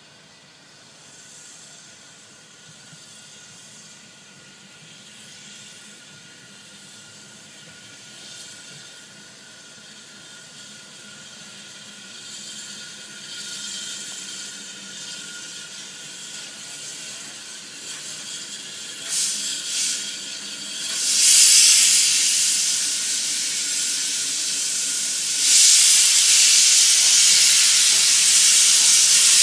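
A 1919 Hawthorn Leslie industrial steam locomotive runs in, its sound growing steadily louder as it nears. A couple of short steam surges are followed by loud hissing of steam being vented in two long blasts over the last several seconds.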